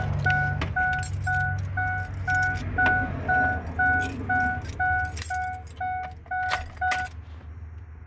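Ford truck dashboard warning chime dinging steadily about twice a second, with keys jingling and clicking at the ignition. The chime stops about seven seconds in.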